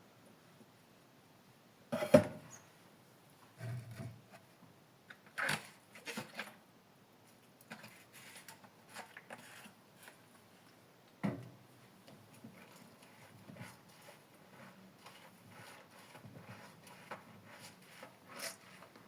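Dishes being washed by hand: a few sharp knocks of crockery being handled, the loudest about two seconds in, among short scratchy strokes of scrubbing.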